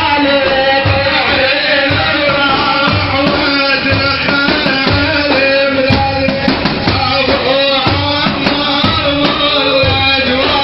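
A male praise singer chanting a Sufi madih over steady beats of frame drums.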